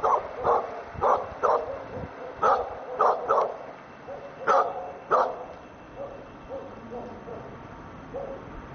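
A dog barking repeatedly, a sharp bark roughly every half second, growing fainter and sparser after about five seconds.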